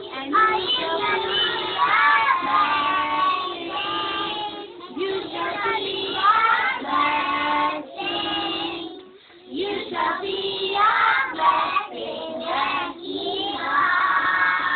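A group of young children singing a song together, with a brief break about nine seconds in.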